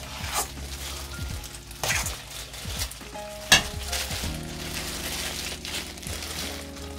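Disposable plastic gloves crinkling and rustling as seasoned rice is squeezed and pressed into fried tofu pouches, with a few sharp knocks, the loudest about three and a half seconds in. Background music with steady held notes runs underneath.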